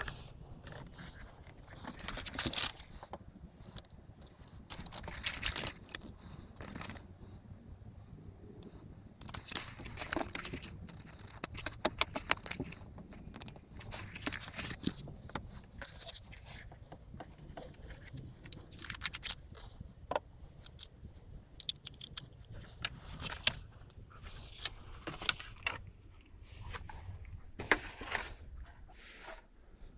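An Outin Nano portable espresso machine and its packaging being handled and unpacked: irregular scraping, rustling and clicking throughout.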